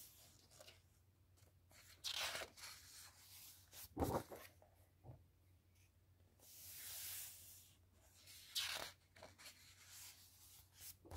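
Coloring book pages turned and smoothed flat by hand: faint paper rustles and swishes, four or five of them with quiet pauses between, the sharpest about four seconds in.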